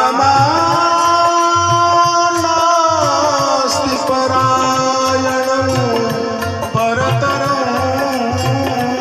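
Indian devotional kirtan music: a singer holds and slides a long drawn-out note between verse lines over a steady tabla and dholak beat of about two strokes a second.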